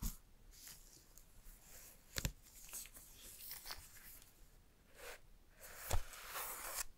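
Paper protective wrap being peeled and unfolded from AirPods Max headphones by gloved hands: light paper rustling and crinkling, with sharp taps at the start, about two seconds in and about six seconds in, and a longer rustle near the end.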